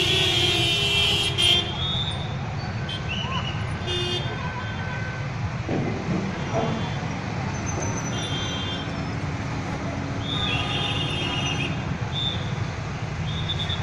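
Heavy engine running steadily with a low rumble, and vehicle horns tooting several times over it: at the start, about four seconds in, and a longer toot about ten to twelve seconds in.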